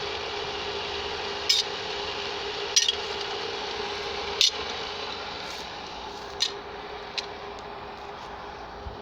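Single-jet well pump running steadily with a constant hum over a hiss, broken by about five sharp metallic clinks a second or two apart.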